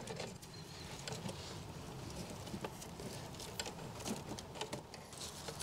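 Faint rustling and scattered light clicks of bundled signal-wire cables being pulled out and sorted by hand.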